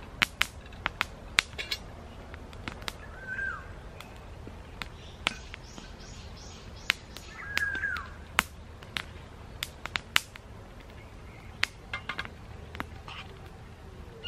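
Sharp, irregular clicks and pops from a wood fire crackling in a small twig stove and from metal tins being handled. A bird calls now and then, with two short chirping calls standing out.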